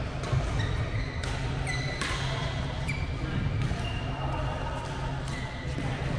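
Badminton shoes squeaking on the court floor as a player moves, with several sharp strikes of racket on shuttlecock, over a steady low hum in the hall.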